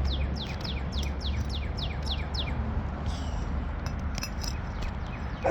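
A bird singing a quick series of falling whistled notes, about four a second, stopping about two and a half seconds in. A dog barks once right at the end.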